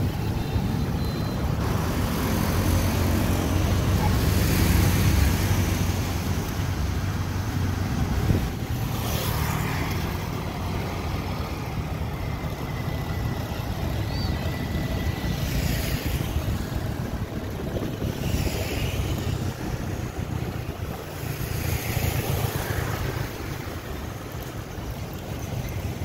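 City road traffic: a steady low engine rumble with road noise, louder for the first few seconds, and several vehicles passing by.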